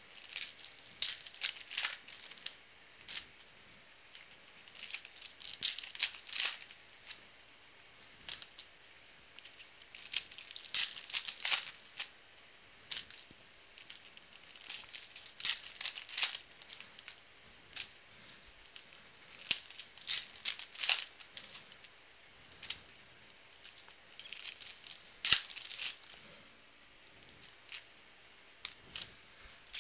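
Foil wrappers of 2016 Panini football card packs being torn open and crinkled by hand, in bursts of crackling every few seconds with quieter pauses between. One sharp click comes late on.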